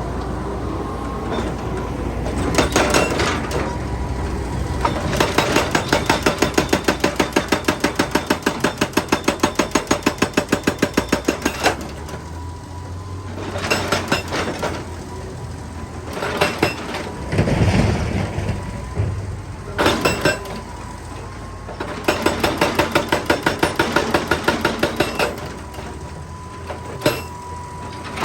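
Excavator-mounted hydraulic rock breaker hammering rock in two long runs of rapid, even blows, about six a second, with the diesel engine running underneath. Between the runs there are a few single heavy knocks.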